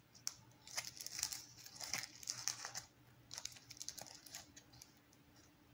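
Thin black plastic bag crinkling in the fingers as it is twisted and tied off with a thread, in close crackly bursts that thin out after about four and a half seconds.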